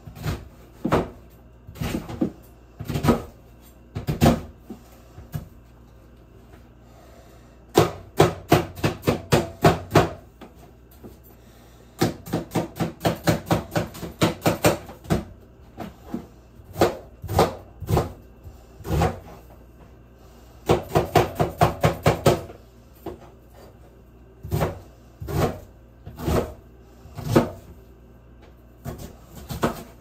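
Kitchen knife chopping onion on a cutting board: single cuts and quick runs of strokes, about four or five a second, with short pauses between.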